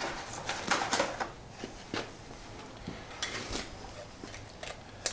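Scattered light metallic clicks and clinks of a piston ring and small parts being picked up and handled at a cast iron engine block, over a faint steady low hum.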